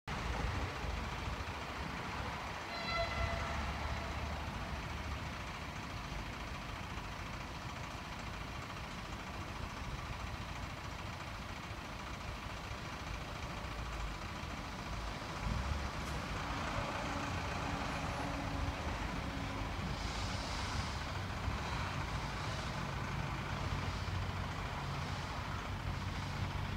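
Steady rumble of road traffic, with a short toot about three seconds in. From about twenty seconds, the slow exhaust chuffs of a small 1925 Hanomag 0-4-0T steam tank locomotive approaching, about one chuff a second.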